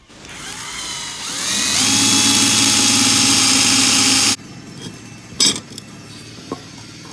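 Electric drill boring a hole in 2.5 mm iron sheet: the motor whine rises as it spins up, runs steady for about two seconds, then stops suddenly. A few light knocks follow.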